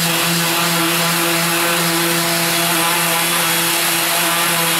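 Mirka random orbital sander running at a steady speed while sanding a Perspex (acrylic) sheet with 1000-grit paper, the last sanding grit before buffing. A constant hum with a hiss over it.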